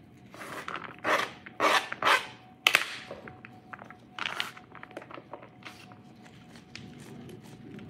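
Disposable plastic gloves rustling, with pats as diced onion and green pepper are pressed onto a raw ground-beef meatloaf: a series of short rustles, loudest in the first few seconds.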